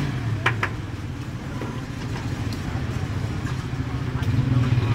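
Steady low rumble of a busy street cooking stall, with two quick metallic clinks about half a second in, as a slotted spoon knocks against a frying wok.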